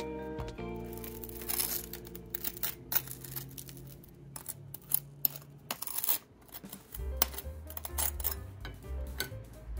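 Table knife spreading butter on toasted bagel halves, a run of short, sharp scrapes of the blade across the crisp toast, over background music.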